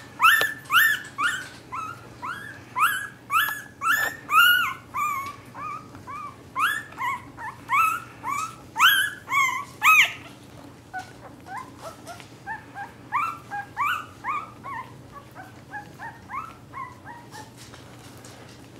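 Young Cavalier King Charles Spaniel puppy crying in a string of short, high, squeaky calls that each rise in pitch, about two a second. The calls grow fainter and sparser after about ten seconds and stop near the end.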